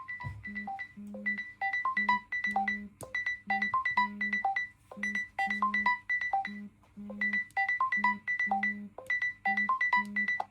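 Smartphone ringtone: a short, bright synthesized melody over a low pulsing note, repeating as a loop about every two seconds.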